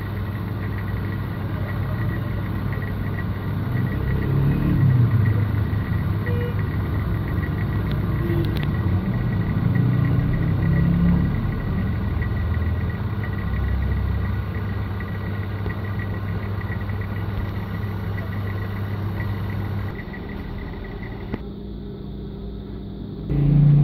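JAKI industrial overedge sewing machine running steadily while fabric is fed through it, stitching a scalloped pico edge. The steady motor hum drops out about twenty seconds in.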